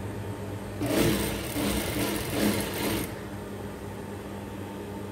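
Sewing machine running and stitching a seam for about two seconds, starting about a second in and stopping, over a steady low hum.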